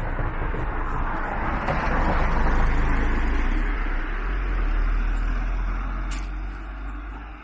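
Road traffic: a car passing on the road, its tyre and engine noise swelling and fading, loudest about two to three seconds in and again around five seconds, over a steady low rumble.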